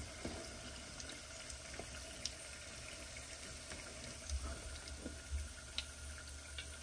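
Food deep-frying in hot oil: a faint, steady sizzling hiss with a few small pops.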